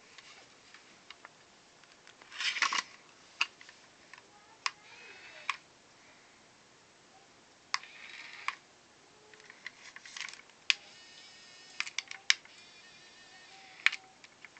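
Small electric motors of a toy remote-control forklift whirring in several short bursts, with sharp plastic clicks and taps in between.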